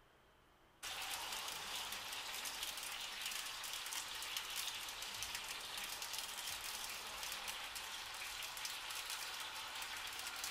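Breaded chicken pieces sizzling and crackling on a foil-lined tray in a toaster oven: a steady hiss full of fine pops that starts abruptly about a second in.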